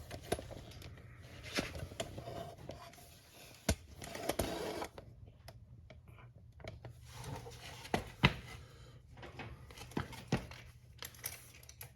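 Scattered light clicks and knocks of hands and tools working on a motorcycle's drive chain and its slack adjusters, over a low steady hum.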